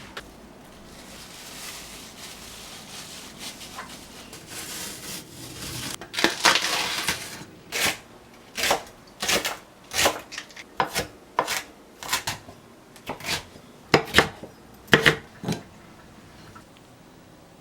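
Kitchenware being handled: a soft rustle, then from about six seconds in a run of about a dozen sharp, irregular knocks and clatters of dishes and utensils being set down.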